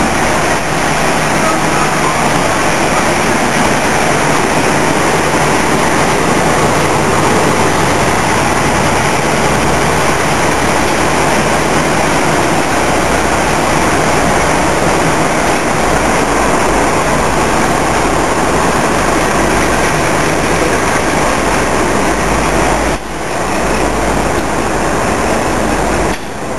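Class 52 'Western' diesel-hydraulic locomotive's twin Maybach engines running loudly as it pulls slowly into the platform and passes close by. The sound drops briefly at two cuts near the end, then another diesel locomotive is heard approaching from further off.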